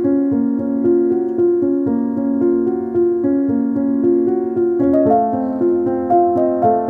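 Background piano music: a steady run of held notes and chords, moving to a new chord about five seconds in.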